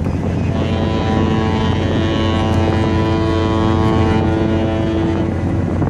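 A cruise ship's horn sounds one long blast of about five seconds, starting about half a second in: a chord of many steady low tones over a continuous low rumble.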